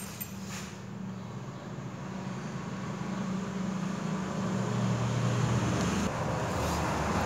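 A low, steady engine hum that grows louder.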